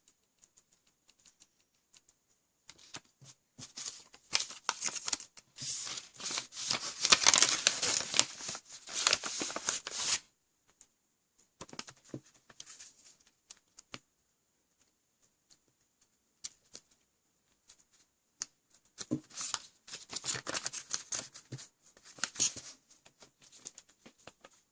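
Packaging materials being handled, with bursts of crinkling and tearing: a long burst from about three to ten seconds in, a short one around twelve seconds, and another from about nineteen to twenty-three seconds. A faint steady high-pitched tone sits underneath.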